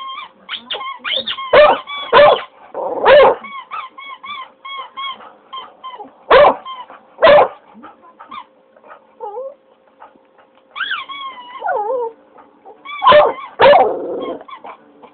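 English cocker spaniel howling and barking in short loud bursts, about seven of them, with one longer falling wail past the middle. In between, a squeaky toy squeaks over and over in quick high-pitched chirps.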